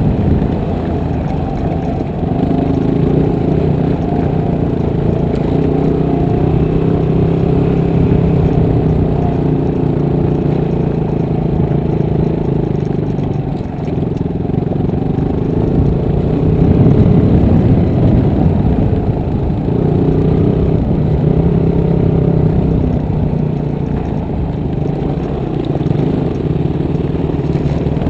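Motorcycle engine running at low speed on a rocky dirt trail, its note shifting a little with the throttle, and getting louder for a couple of seconds a little past halfway.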